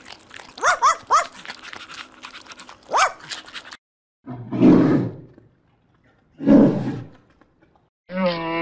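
A few short, high yelping barks, then two loud, deep roars about two seconds apart.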